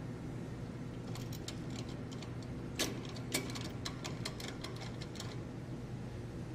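Small metal nut and washer being threaded finger-tight onto a bolt beneath a saddle block, giving irregular light clicks and ticks, two of them louder near the middle, over a steady low hum.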